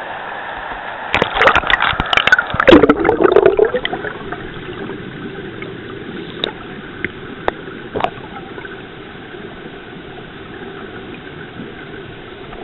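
River water rushing steadily, with a few seconds of loud splashing and gurgling about a second in, then a few scattered sharp knocks.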